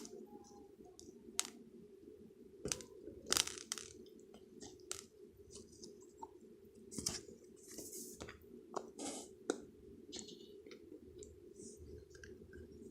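Slime being handled, squished and stretched by hand, making irregular small clicks and crackly, squelchy pops over a steady low background hum.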